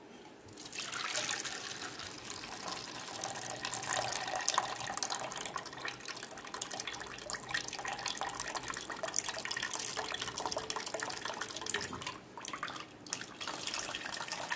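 A stream of water pouring into a stainless steel bowl of ground wheat paste, splashing and frothing. It starts about a second in and breaks off briefly near the end before going on.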